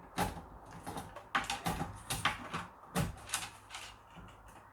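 About half a dozen sharp clicks and knocks of an Acorn RISC PC motherboard being fitted into its case and pushed into place.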